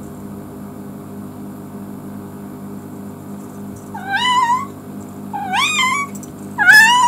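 Domestic cat meowing three times in the second half, about a second apart, each call rising then falling in pitch, the last one the loudest. These are the calls of a cat left home alone and growing lonely.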